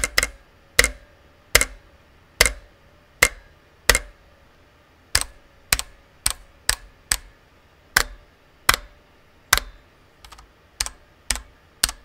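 IQUNIX F96 KAT mechanical keyboard (Cherry MX Red switches, aluminium case) with keys struck firmly one at a time, about one every 0.7 s, and a few quicker, lighter presses near the end. A faint metallic ring lingers after the strikes: the case's subtle metallic reverb on hard key presses.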